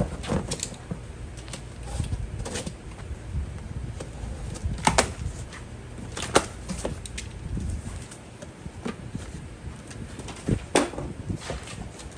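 A wet/dry vac's cardboard box being opened and its packed parts handled: irregular clicks, knocks and rustles, with a few sharper knocks about five, six and eleven seconds in.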